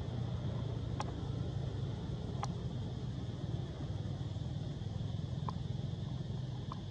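Steady low rumble of outdoor background noise, with a few faint short ticks: about a second in, near two and a half seconds, and twice near the end.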